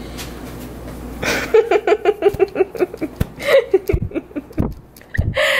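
A person laughing in quick, repeated bursts, starting about a second and a half in after a steady low hum, with a few sharp knocks near the end.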